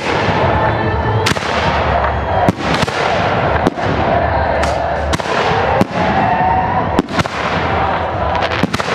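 Aerial fireworks shells bursting in a steady series, roughly one loud bang a second, each bang trailing off in echo.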